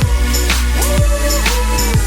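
Background music: a song with a gliding melody over heavy bass and a steady beat.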